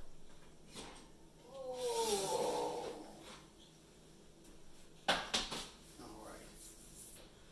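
A baking dish of chicken parmesan lifted out of the oven and set down on a glass-top electric range, with a short cluster of hard clicks and knocks about five seconds in. Earlier, around two seconds in, a brief groaning sound as the dish comes out.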